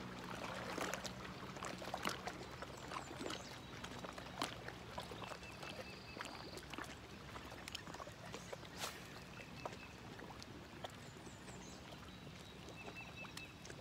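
Lake water lapping and splashing lightly against a rocky shore: a soft hiss full of irregular small splashes and clicks. A few faint high chirps come now and then.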